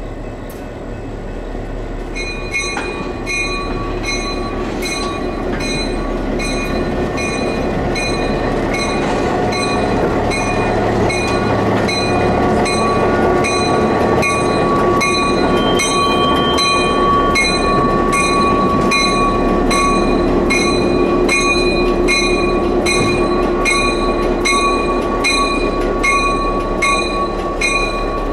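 EMD GP10 diesel locomotive drawing slowly past, its engine growing louder as it nears. The locomotive bell starts about two seconds in and rings steadily, about twice a second.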